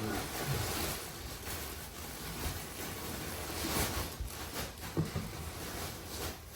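Rustling of clothing being handled, with a few soft knocks.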